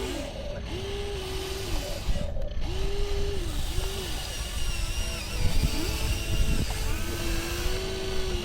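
Whine of RC construction machines' electric motors and hydraulic pump, rising and falling in pitch in short spurts as the controls are worked. A few low knocks come a little past the middle.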